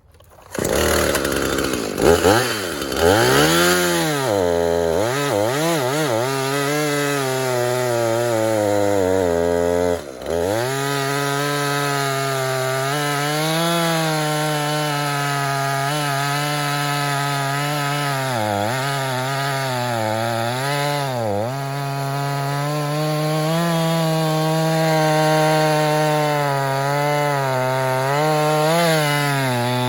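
Husqvarna 450e Rancher two-stroke chainsaw starting, revving up and down a few times, then running at full throttle as it cuts through a dead log, its pitch wavering slightly as the chain loads in the wood. The sound drops briefly about ten seconds in.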